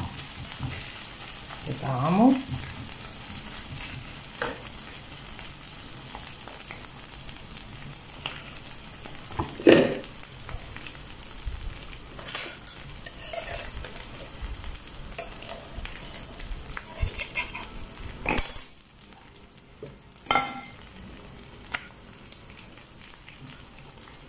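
Minced meat with tomato paste sizzling in a non-stick frying pan while it is stirred with a wooden spatula, a steady frying hiss with a few short louder scrapes and knocks of the spatula against the pan. The sizzle drops noticeably about 18 seconds in.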